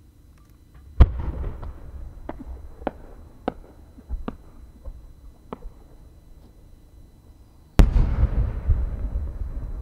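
A No. 10 (about 30 cm) chrysanthemum fireworks shell fired from a mortar: a deep launch thump about a second in, a string of sharp pops from its rising effects as it climbs, then the heavy boom of the shell bursting near the end, rolling on in a long rumbling echo.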